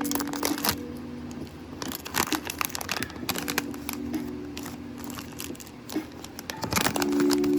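Blind-box toy packaging being handled close up: rapid crinkling, crackling and tearing of the wrapper, with steady held musical tones underneath that come and go.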